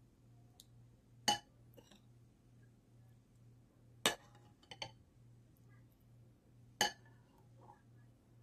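A metal spoon clinking against a ceramic soup bowl as it stirs a thick milk soup: four sharp clinks a few seconds apart, one of them doubled.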